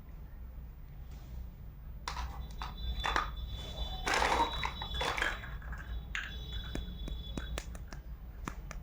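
Small plastic toy kitchen pieces handled, with scattered sharp clicks and a louder rustle about four seconds in. A faint high steady tone sounds through the middle.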